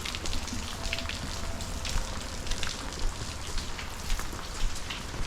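Heavy rain pattering steadily, with scattered drops ticking close by.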